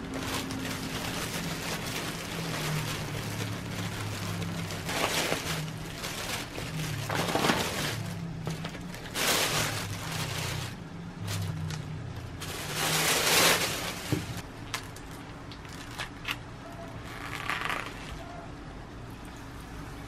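Thin plastic carrier bag rustling and crinkling in loud swells as it is untied and pulled open from around a takeout food container, over soft background music.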